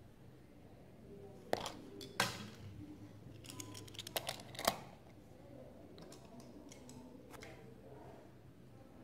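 A handful of sharp clicks and knocks, bunched between about one and a half and five seconds in: hand-handling noise as a die-cast toy car is lifted off the board and another is set down in its place.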